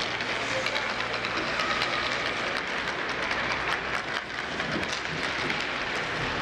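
Ice rink ambience: a steady low hum with many scattered sharp clicks and clacks from hockey sticks and skates on the ice.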